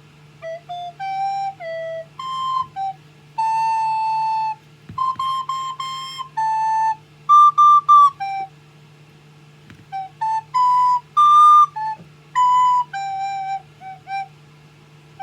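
Recorder played by a child: a simple melody of separate held and short notes, some repeated three times in quick succession, with brief pauses between phrases. A faint steady low hum lies underneath.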